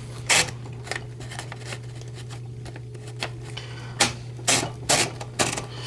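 Scattered sharp mechanical clicks and clacks from a 1969 Brother Opus 895 manual typewriter being worked by hand, a couple near the start and a quicker cluster in the last two seconds, over a steady low hum.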